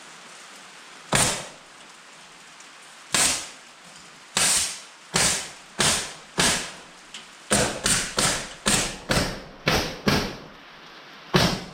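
Pneumatic air stapler firing staples through fibreglass insulation backing into wooden framing: about fourteen sharp shots, spaced out at first, then coming quickly about every half second from past the middle.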